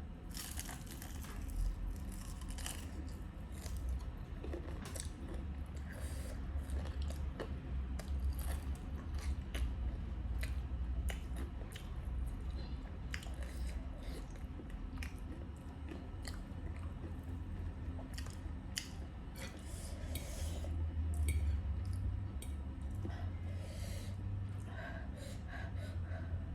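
A person chewing food close to the microphone, with many irregular small crunches and mouth clicks over a low steady hum.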